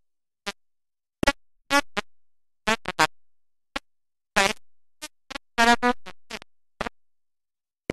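A woman's voice broken into about a dozen short, garbled fragments with a warbling, electronic-sounding tone, each cut off into silence.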